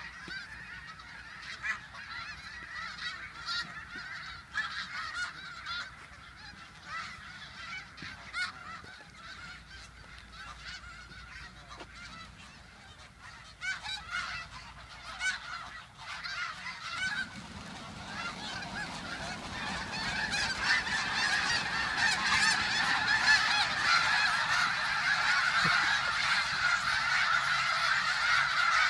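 A large flock of snow geese honking, a dense chatter of many overlapping calls that swells and grows much louder about two-thirds of the way in.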